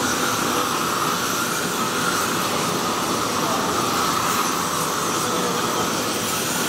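Steady, even roar of a glassblowing hot shop: furnaces and glory-hole burners running together with ventilation fans.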